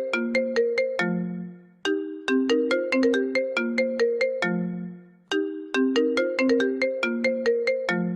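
iPhone ringtone playing: a short phrase of quick, bell-like notes that ends on a held low note and repeats about every three and a half seconds, sounding twice through and into a third time.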